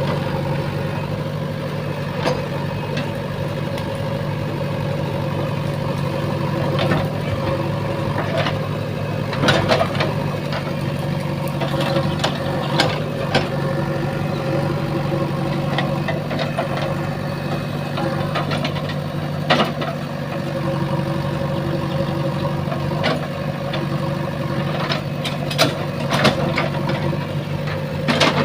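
JCB 3DX backhoe loader's diesel engine running steadily, with scattered sharp knocks and clanks from the machine at work.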